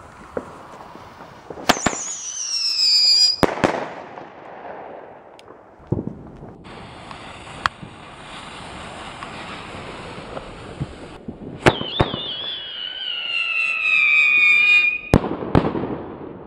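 Two Thunder Kong Whistling mortar-tube shells firing one after the other. Each leaves the tube with a sharp crack, whistles as it climbs with the pitch falling, and ends in a salute bang: the first whistle lasts under two seconds, the second over three. Between the two shots a lit fuse hisses and sputters for a few seconds.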